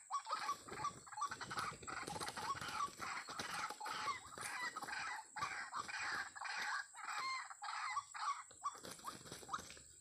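White-breasted waterhen calling: short, loud calls repeated several times a second in a continuous, almost unbroken run.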